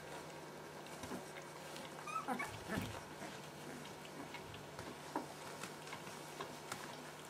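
Two-week-old Siberian husky puppies whimpering, with a cluster of short high squeaks about two seconds in and scattered soft clicks and taps.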